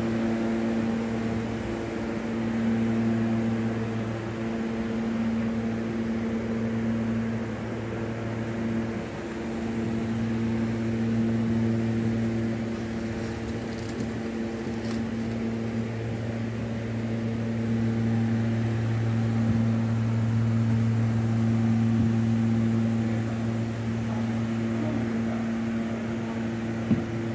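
Steady low machinery hum holding one pitch with overtones, rising and falling a little in loudness, with a short click near the end.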